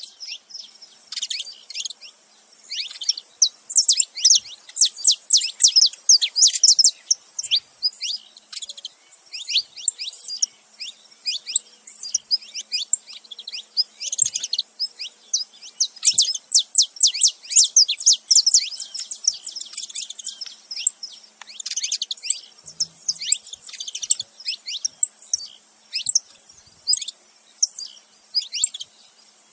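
A male and female saffron finch chirping and singing together: rapid runs of short, sharp, high chirps that come in bursts with brief pauses.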